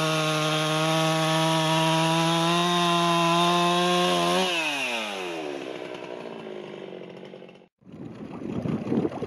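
Two-stroke chainsaw running at full throttle, steady, as it cuts lengthwise along a wooden plank. About four and a half seconds in, the throttle is released and the engine note falls and winds down towards idle.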